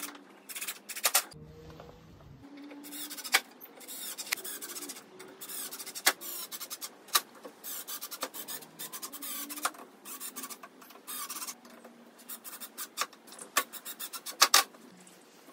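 Cordless drill driving screws through a metal strip into a wooden crib rail, in many short bursts one after another.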